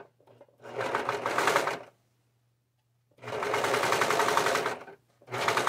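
Brother overlock serger stitching and trimming fabric in three runs: about a second and a half, then a longer run of about a second and a half from around three seconds in, then a short burst at the end, with a fast, even stitching rhythm and short pauses between as the fabric is repositioned.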